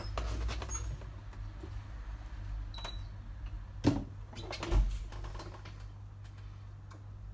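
A few light clicks, then two sharp knocks about a second apart, over a steady low hum.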